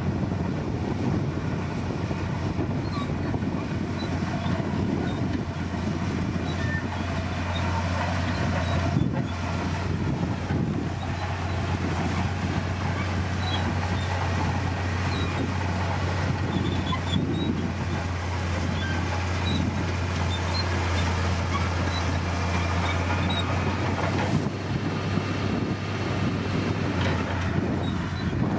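Komatsu D60P bulldozer's diesel engine running steadily under work, a constant low drone at an even level.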